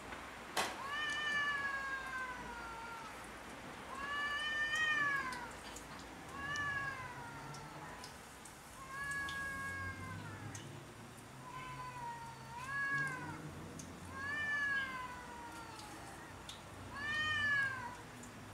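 Two cats yowling at each other in a territorial standoff: a series of long, drawn-out calls about every two seconds, each rising and then falling in pitch. A sharp click sounds once near the start.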